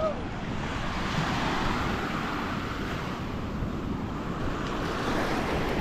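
Gentle surf washing in on a sandy beach, with wind rumbling on the microphone.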